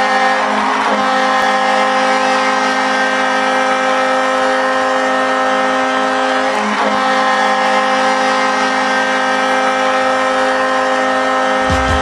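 The Fort Wayne Komets' ice hockey goal horn blowing one long, steady blast: a chord of several tones held together, signalling a goal.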